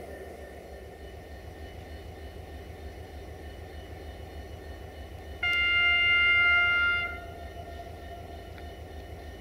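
Horn of a Desiro VT642 diesel multiple unit giving one loud, steady blast of about a second and a half as it approaches, over a steady low rumble.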